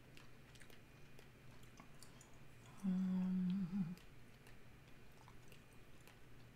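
A woman humming one held note for about a second, ending in a short waver. Faint light ticks of a paintbrush dabbing on watercolour paper sound around it.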